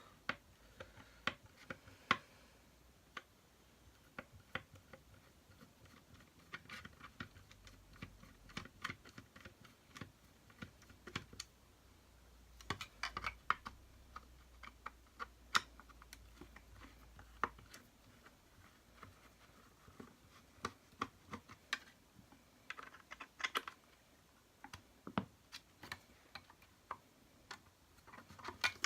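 Hand screwdriver working flat-head screws out of a vacuum cleaner's plastic body: scattered small clicks and taps of metal on plastic, coming in short clusters.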